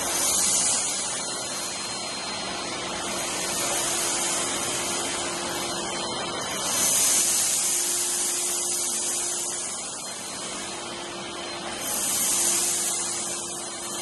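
Canister wet-and-dry vacuum cleaner running steadily with a faint motor whine, its hiss swelling louder three times (near the start, about halfway and near the end) as the floor nozzle sucks up scattered granules from a concrete floor.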